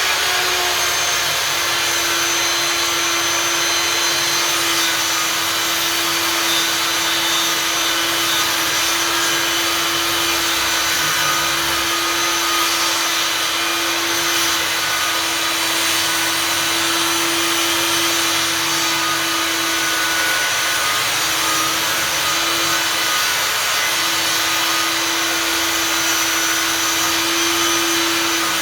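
Einhell table saw running steadily while sawing wooden boards, a constant motor-and-blade noise with a steady hum. The hum dips briefly twice about two-thirds of the way through as the blade loads in the cut.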